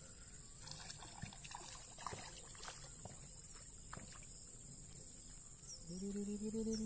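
A hooked tilapia splashing and thrashing at the water surface as it is reeled in to the bank. Near the end a held, pitched cry, the loudest sound, rises in and holds for about a second and a half.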